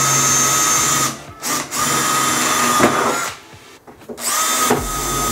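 Cordless drill-driver running in three short bursts of steady whine, driving fixing screws through the plate of a door lock into the van door. The first burst stops about a second in, the next runs for nearly two seconds, and the third starts about four seconds in after a short pause.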